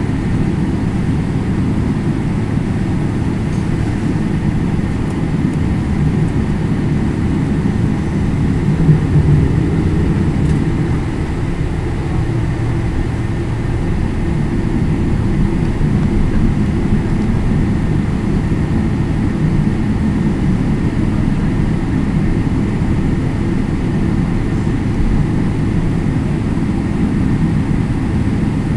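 Cabin noise inside a Boeing 777-300ER taxiing: a steady low rumble from its GE90 engines at taxi power and the rolling airframe, with a faint steady high whine.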